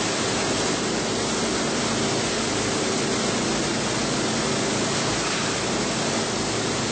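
Plastic agglomerator (densifier) running: a steady rushing whir with a low, even motor hum underneath.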